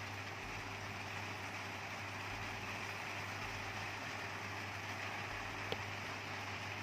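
Steady background hiss with a constant low hum, and one short light click about six seconds in.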